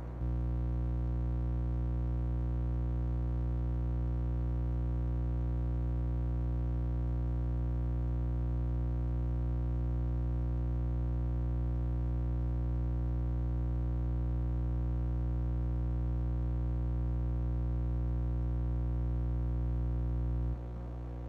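Steady electrical hum with a long row of overtones, switching on abruptly and cutting off near the end. Its cause is unknown to the owner.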